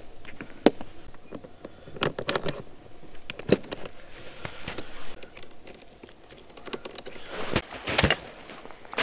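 Scattered small clicks, knocks and rustles of gear being handled at the front of a plastic pulk sled, then footsteps crunching in snow near the end.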